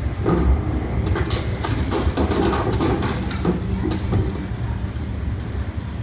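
Low rumbling with irregular clattering knocks, played from the soundtrack of an animated video artwork in which objects such as a cash register, crates and a shopping cart drop and pile onto a slice of bread.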